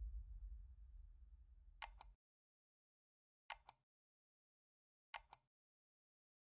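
A low rumble fades out over the first two seconds, then mouse-click sound effects come in quick pairs: three double-clicks about a second and a half apart.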